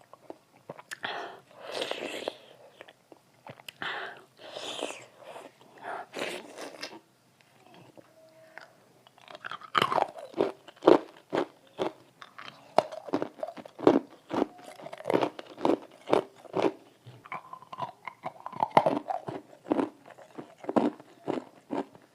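Close-miked crunching and chewing of food. First a few separate crunchy bites about a second apart, then from about ten seconds in a fast run of sharp crunching chews, several a second.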